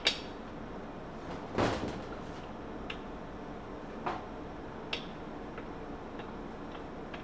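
Breaker bar and socket working the cylinder-head nuts loose on a two-stroke golf cart engine: one louder metallic clunk about a second and a half in, then a few short sharp clicks of the socket and bar on the nuts.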